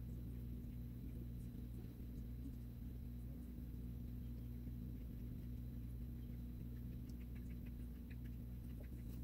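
Quiet room tone: a low steady hum, with a few faint small ticks near the end.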